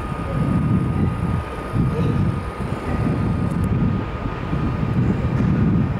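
CFL double-deck passenger train rolling slowly into the station: a low rumble that swells and fades irregularly, with a faint steady whine above it.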